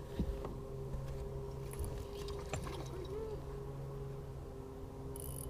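Steady low hum of an electric trolling motor on a bass boat, with a few light knocks on the hull near the start and about two and a half seconds in.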